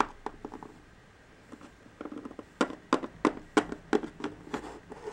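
Hard plastic Littlest Pet Shop toy figure tapped along a hard surface as it is hopped forward: light clicks, a few at the start and then a quick run of about four a second from about halfway through.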